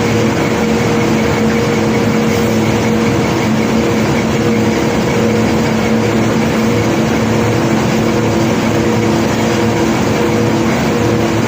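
Heavy unloading machinery running steadily: an engine drone with a constant multi-tone hum over dense rumbling noise, without separate knocks or stone impacts.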